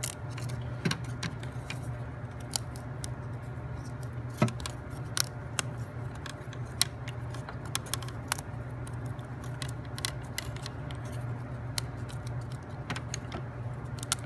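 Small wooden parts being pushed out of a laser-cut plywood sheet and handled: irregular light clicks and snaps, about one or two a second, with a few sharper ones, over a steady low hum.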